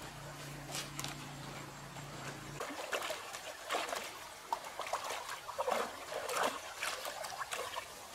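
Water splashing and dribbling in short irregular bursts, after a low steady hum that stops about two and a half seconds in.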